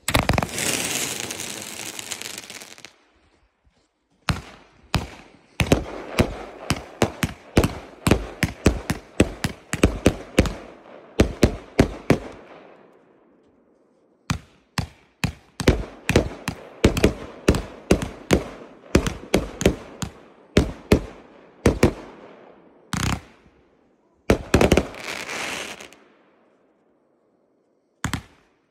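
Consumer fireworks cake (multi-shot battery) firing: a hiss for the first few seconds, then rapid runs of sharp cracks, about three a second, broken by short pauses.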